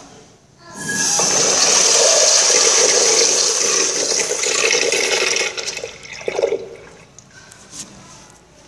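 Kohler Dexter urinal flushing: a rush of water starts about a second in, runs strongly for about four and a half seconds, then dies away.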